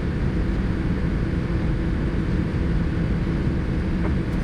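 Steady low rumble inside the cabin of a Boeing 787-10 on the ground after landing, with a faint steady hum in it.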